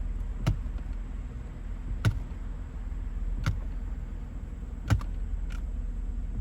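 Periodic thumping from under the hood of a 2000 Mercedes-Benz CLK320, four sharp beats about every second and a half, with hand taps kept in sync with it, over a steady low hum. The pulse comes from a valve in the heater line, which the owner takes for some sort of blend valve and is told is normal.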